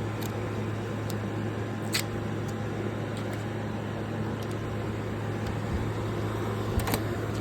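Window air conditioner running: a steady low hum with the even rush of its fan blowing air, and a few light clicks, one about two seconds in and one near the end.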